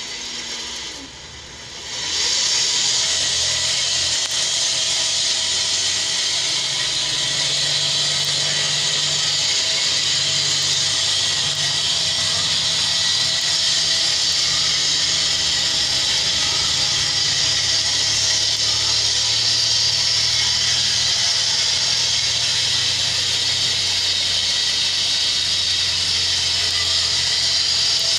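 Electric motor of a battery-operated, speed-adjustable bud cutting machine switching on about two seconds in, then running steadily with a loud, even hissing whir. Its low hum steps down a little in pitch around the middle.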